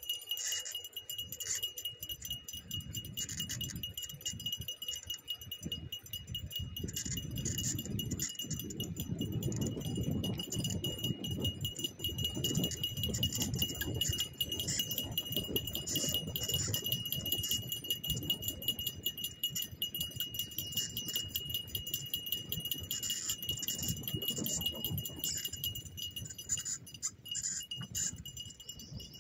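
Skateboard wheels rolling on an asphalt path with a continuous low rumble, mixed with the light metallic jingle of the dogs' tags and leash clips as the dogs pull the board, over a thin steady high tone.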